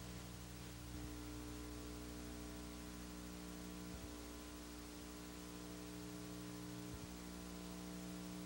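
Steady electrical mains hum with hiss on an old videotape soundtrack, with faint clicks about a second, four seconds and seven seconds in.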